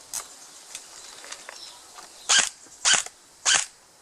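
A few faint clicks, then three single shots from a G&G GR16 electric airsoft rifle (AEG) on semi-auto, each a short sharp crack, about two-thirds of a second apart.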